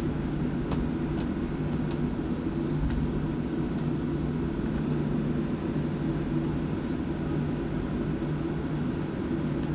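Boeing 737-400's CFM56-3 turbofan engines at low taxi power, heard inside the cabin as a steady hum with several steady low tones. A few faint clicks sound in the first three seconds.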